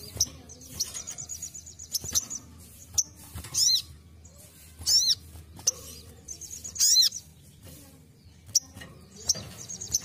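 Sogon (brown-throated sunbird) calling: sharp high chirps every second or two, with short, rapid high trills near the start, in the middle and near the end, and a few faint clicks.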